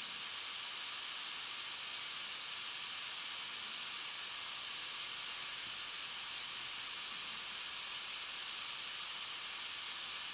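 Steady, even hiss from a home-built FM receiver's small loudspeaker: FM static, the noise the receiver makes when no station's programme is coming through.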